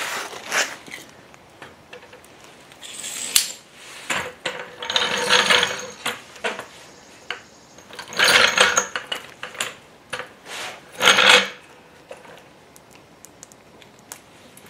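Steel floor jack being positioned and its handle fitted under a car's rocker seam: a sharp click and several bursts of metal clanking and rattling, the loudest about eight and eleven seconds in.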